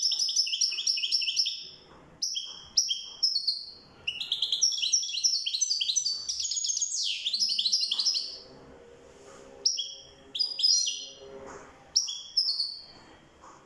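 European goldfinch singing: fast, high twittering phrases. It sings a long run at the start and another from about four to eight seconds in, then short phrases broken by brief pauses.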